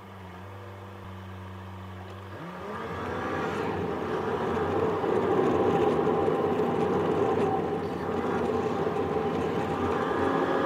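Car engine idling steadily for about two seconds, then rising as the car pulls away, with tyre and road noise building up as it gathers speed.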